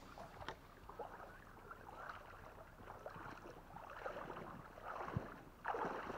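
River water sloshing and gurgling, with irregular small splashes and a few clicks, louder near the end.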